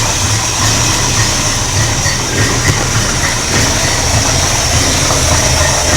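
Chevy 350 V8 with a stage 2 cam idling through dual Flowmaster mufflers: a steady low rumble with a pulsing beat.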